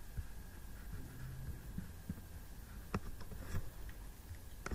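Low steady hum and rumble of room tone with a faint high steady tone, broken by a few faint clicks, the clearest about three seconds in and another near the end.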